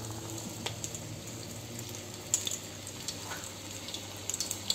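A ball of onion bonda batter, gram-flour batter with sliced onion, sizzling in hot oil in a frying pan, with scattered sharp crackles over a steady low hum.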